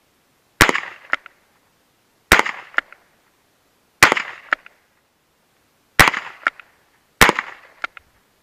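Alfa revolver carbine in .22 LR being fired: five sharp shots, one every one and a half to two seconds. Each is followed about half a second later by a fainter crack or two.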